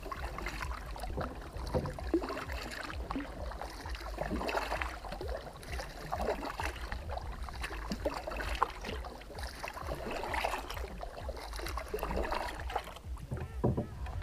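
Kayak paddle strokes dipping and splashing in the water, about one every two seconds, over a steady low rumble.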